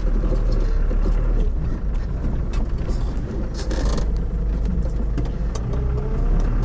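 Inside a Land Rover Defender's cabin while driving off-road: a steady low rumble from the engine and drivetrain, with frequent rattles and knocks from the body and fittings.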